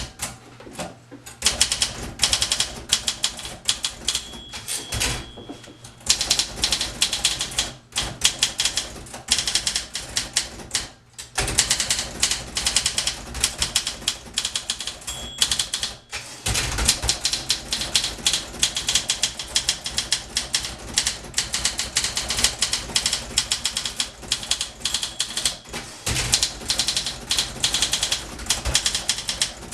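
A 1961 Olympia SM4 portable typewriter being typed on: a rapid, dense stream of key and typebar strikes, broken by a few brief pauses.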